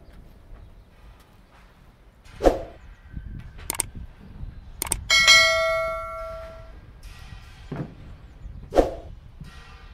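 A bell struck once about five seconds in, ringing and fading over about a second and a half, among a few sharp knocks and thumps.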